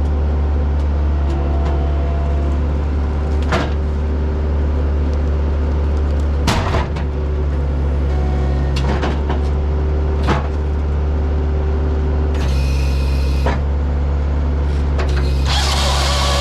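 Heavy-equipment diesel engine running steadily under the hydraulic firewood processor's load, with sharp clanks of logs and steel several times. A rushing noise joins in near the end.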